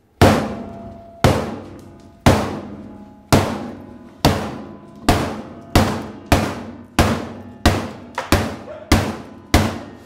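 About a dozen heavy blows on a block of mycelium material, coming faster and faster. Each lands with a booming, drum-like hit and a long echoing tail.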